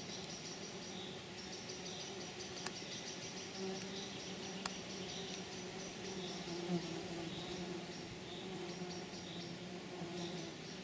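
Insects: a steady low buzzing hum, with repeated trains of rapid high-pitched chirping pulses over it. Two faint clicks come a few seconds in.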